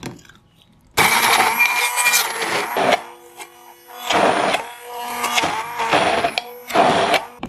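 Stick blender puréeing soaked, sugared red beans in a plastic jug: the motor whirrs in two runs, starting suddenly about a second in and stopping about two seconds later, then running again from about four seconds until just before the end, its level rising and falling as the blade works through the thick paste.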